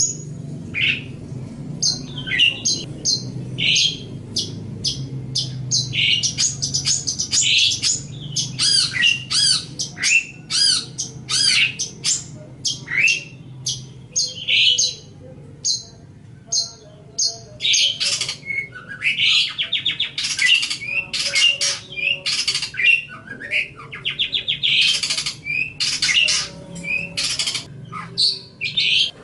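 Long-tailed shrike (cendet) singing without pause: a rapid, varied run of short chirps, whistles and trills. From about two-thirds of the way in, harsh rasping notes come in among them.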